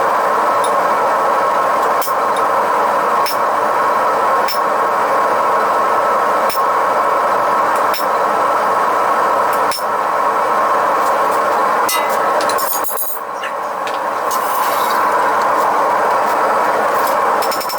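Blacksmith's forge running with a steady rushing noise, with a few sharp metallic clicks here and there and a brief drop in level about thirteen seconds in.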